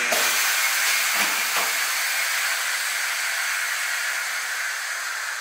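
Steady hiss of rushing air that swells suddenly and then slowly fades, with a couple of faint knocks about a second and a half in.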